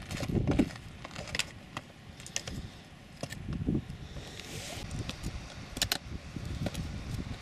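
Footsteps of ski boots on stony hillside ground, with irregular sharp clicks and clatter from gear and stones and low buffeting on the microphone.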